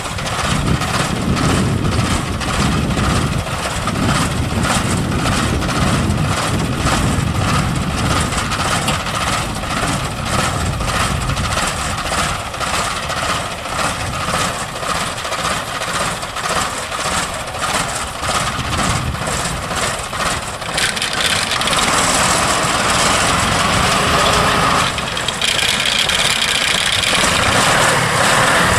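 Engine of a straw-gathering machine converted from an old combine harvester, running with a steady rhythmic clatter as its hydraulic rams lift the hopper to dump straw. About 21 seconds in the sound brightens, and a few seconds later a steady whine joins it.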